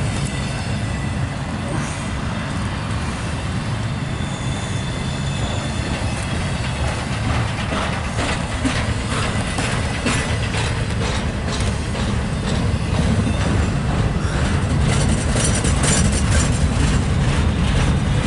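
Double-stack intermodal freight cars rolling past close by: a steady low rumble of steel wheels on rail. From about halfway in, repeated sharp clicks and clacks of wheels over the rail joints, growing a little louder near the end.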